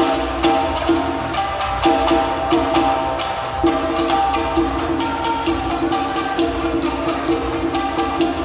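An ensemble of Tsugaru shamisen playing a Japanese folk (min'yō) tune together, the plectrums striking strings and skin in sharp percussive strokes several times a second.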